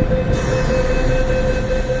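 MTR M-Train heard from inside the passenger car as it runs: a steady rumble of wheels on the track with a steady whine held over it.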